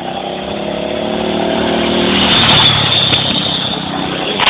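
A motor vehicle passing by: its engine hum grows louder with the pitch slowly falling, peaks about halfway through, then fades.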